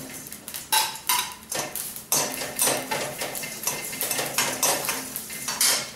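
Metal spatula scraping and knocking against a metal kadai while stirring spices and grated coconut being dry-roasted with no oil, so there is no sizzle. It is a quick, irregular run of scrapes and clinks, about two strong strokes a second.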